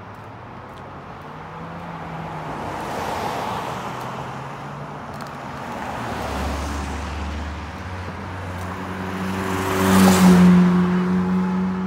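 Cars passing on a village road one after another, tyre and engine noise swelling and fading three times, the last pass the loudest, about ten seconds in.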